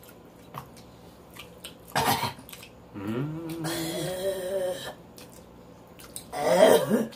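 Eating at a table: small mouth clicks and smacks from chewing. A short vocal outburst comes about two seconds in, a drawn-out voiced cry rises and then holds from about three to five seconds, and another short outburst comes near the end.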